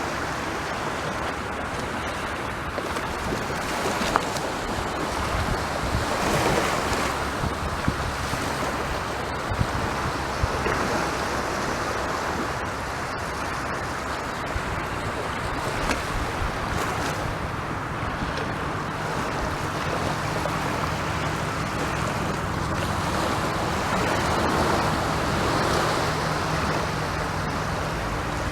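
Sea waves breaking and washing up a beach in a continuous surf, swelling every several seconds, with wind buffeting the microphone.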